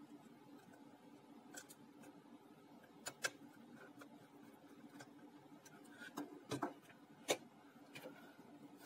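Faint scattered clicks and taps of a small screwdriver and the plastic case of a portable CD player being unscrewed and handled, the sharpest clicks about three seconds in and near seven seconds, over a faint steady hum.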